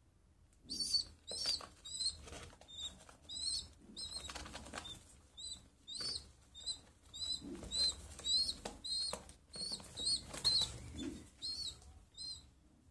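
A young pigeon squeaking: a run of short, high peeps, about two a second, mixed with wing flaps and feather rustling as a hand strokes it.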